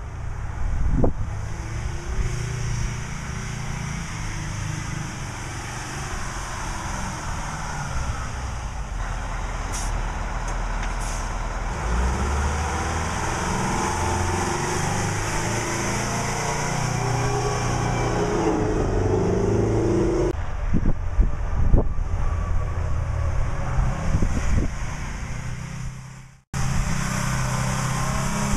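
Oshkosh M1070 HET tractor's Detroit Diesel two-stroke V8 running heavily as the truck drives, its pitch rising and falling as it pulls. There are two brief hisses partway through and a few knocks later, and the sound cuts off abruptly near the end before resuming.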